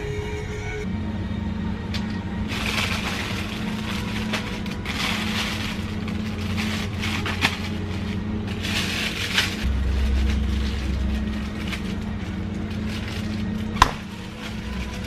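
Plastic bags of frozen food crinkling in several short bursts over a steady low hum, with a sharp click near the end.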